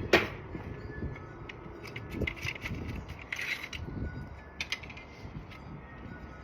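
A sharp arrow hit on the target right at the start, about a third of a second after the release of a traditional recurve bow. Quieter scattered clicks and rattles follow, from arrows and the bow being handled between shots.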